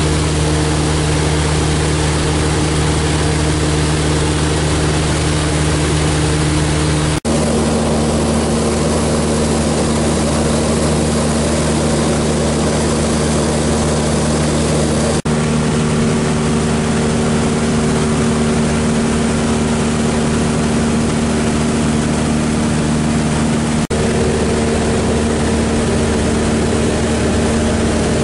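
Maule MX-7's piston engine and propeller running steadily at cruise, heard inside the cockpit as a constant drone with rushing air. Three very short gaps break it, about 7, 15 and 24 seconds in.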